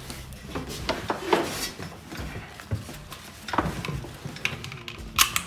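Four-point harness straps and metal buckle hardware clicking and clinking as they are fastened and tugged, with clothing and seat rustling between the clicks and a sharper click near the end.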